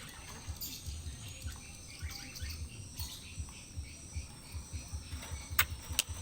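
Birds chirping in short scattered calls, with two sharp clicks near the end and a low intermittent rumble underneath.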